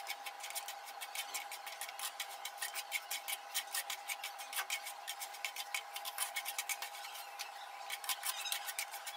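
Wooden spatula scraping and stirring semolina with cashews, almonds and raisins across a flat non-stick pan: rapid, irregular scrapes and light clicks as the semolina is dry-roasted in ghee until it puffs.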